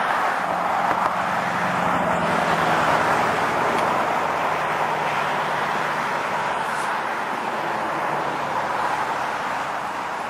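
Steady rushing noise of road traffic, with a faint low hum that drops slowly in pitch during the first few seconds as a vehicle passes.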